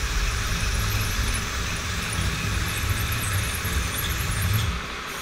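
Lego gantry crane travelling along its rails under motor power, a steady mechanical whir that stops shortly before the end as the crane comes to rest.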